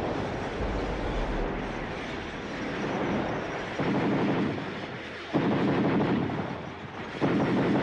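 Battle noise from an archival war soundtrack: a continuous rumble with sudden louder surges about every one and a half to two seconds.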